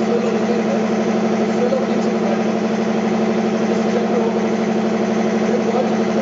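Special-purpose machine running with a steady mechanical hum and fast, fine pulsing as its fixture turns a cylindrical workpiece.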